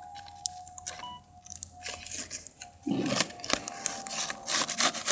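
Bonfire crackling, with scattered sharp snaps and pops, then louder crunching and rustling from about three seconds in.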